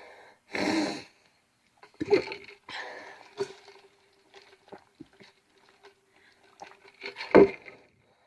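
A man's breathing and mouth noises: a short sniff about half a second in, then small clicks and breaths, and a short louder throaty sound near the end.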